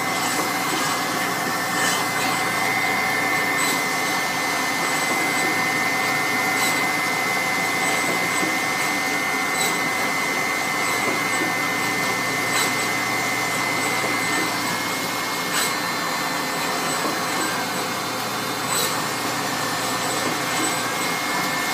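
Fuji NXT SMT pick-and-place machine with an H01 placement head running at low speed: a steady whine and air hiss, with sharp clicks about every three seconds.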